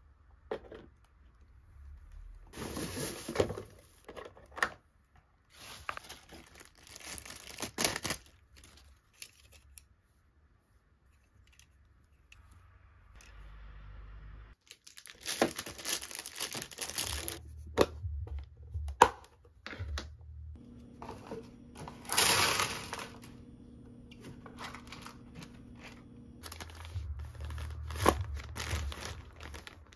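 Plastic packaging crinkling and tearing in irregular bursts while kitchen items are unboxed, with small knocks and clicks of plastic parts being handled; near the end, a plastic mailer bag rustles as it is handled.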